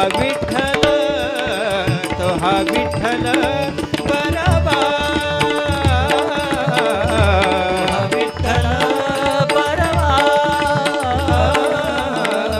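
A male singer singing a Marathi abhang (devotional song), accompanied by tabla and pakhawaj strokes.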